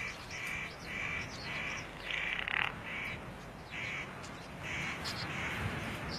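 A bird giving a series of short crow-like calls, about two a second, growing sparser after about three seconds.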